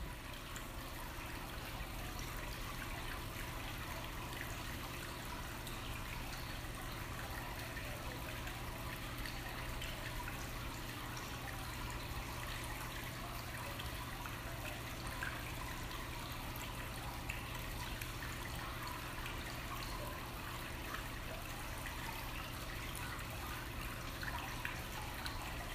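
Running water trickling and splashing steadily, over a low steady hum.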